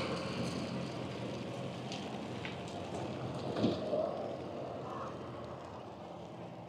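Faint, steady outdoor background noise that slowly fades, with one brief louder sound about halfway through.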